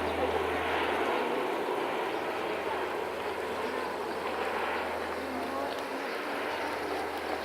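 Small propeller aircraft on its landing approach, its engine noise fading as it moves away after passing over.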